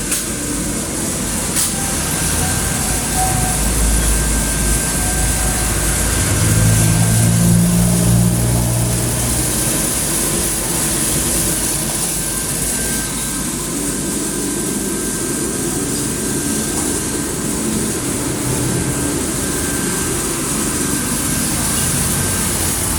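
Pratter coffee roaster running steadily through a roast: a continuous hiss with a low mechanical hum and a faint steady whine, and a single sharp click about a second and a half in.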